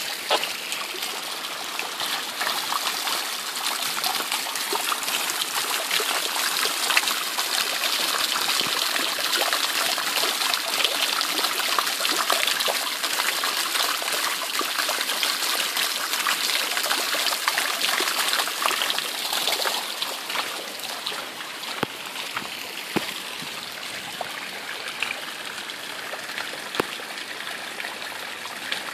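Heavy rain with storm water pouring from a downpipe and running across a flooded lawn: a steady rushing hiss with scattered small splashes, easing off a little about two-thirds of the way in.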